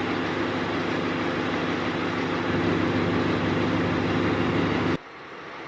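Fire truck's diesel engine running steadily. It stops suddenly about five seconds in, leaving fainter background noise.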